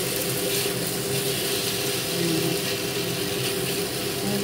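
Beef cubes sizzling in a wok as they are stirred and scraped with a wooden spatula, over a steady low machine hum.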